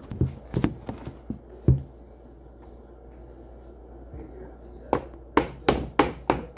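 A metal spoon knocking and tapping against a plastic cup while thick ice-cream milkshake mix is spooned and packed into it. There are a few dull knocks at first, then a quick run of sharp taps, about four or five a second, near the end.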